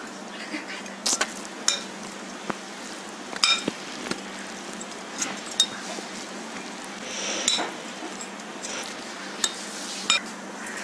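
A metal spoon stirring a grated beetroot, peanut and coconut mixture in a glass bowl. It scrapes through the moist mix and clinks sharply against the glass at irregular moments, several times a few seconds apart.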